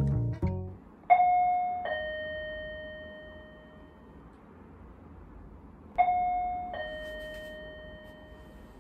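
Two-note ding-dong doorbell chime, a higher note falling to a lower one, rung twice about five seconds apart, each note ringing out and fading slowly.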